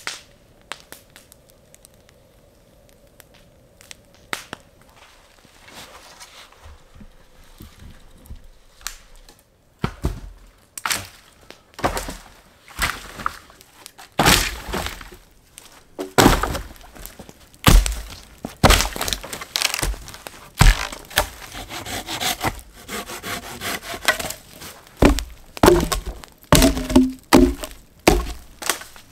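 Dry dead branches being broken up for firewood: a run of sharp woody cracks and thunks that starts about ten seconds in and comes thick and fast toward the end.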